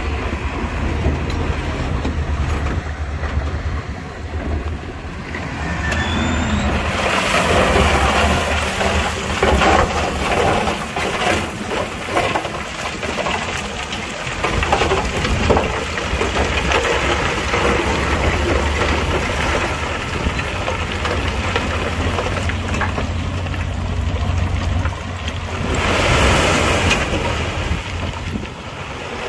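Heavy diesel earthmoving machinery running steadily, with rock and gravel grinding and rattling from about seven seconds in.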